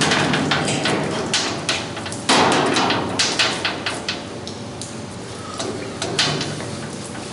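An irregular series of sharp knocks and clatters, densest in the first four seconds, with a louder rushing burst a little over two seconds in.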